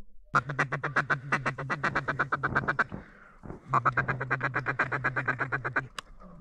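Duck call blown in a fast, even chatter of about ten notes a second, in two runs of two to three seconds with a short break between. This is the rapid feed-call calling used to pull in passing mallards.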